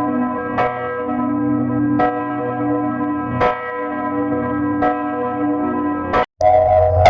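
A single church bell tolling, struck about five times at an even pace of roughly one stroke every second and a half, each stroke ringing on into the next. Near the end it cuts off abruptly and a different, louder ringing sound starts.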